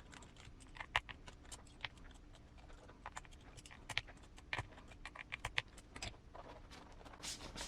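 Irregular light clicks and taps of small hardware being handled and driven: RC crawler beadlock wheels being assembled onto their tires.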